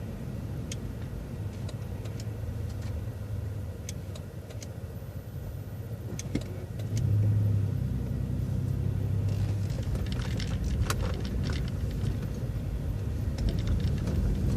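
City bus engine running with a low hum. It gets louder about seven seconds in as the bus pulls through the turn and accelerates, with scattered rattles and clicks over it.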